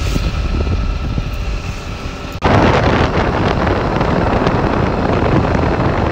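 A vehicle running along a road, its steady low rumble mixed with wind rushing over the microphone. About two and a half seconds in, the sound breaks off for an instant and comes back as a louder, hissing rush.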